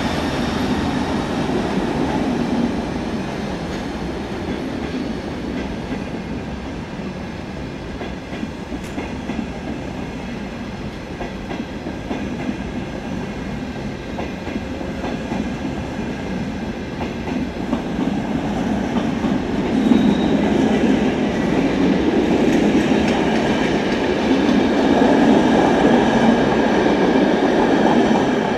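Passenger train rolling slowly through station trackwork, heard from aboard: a steady rumble of wheels on rails that grows louder over the second half.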